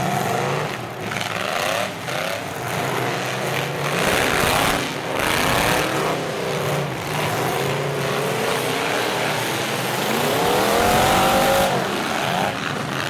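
Demolition derby pickup trucks' engines revving hard, over and over, the pitch climbing and dropping with each push of the throttle; the loudest, longest rev comes near the end.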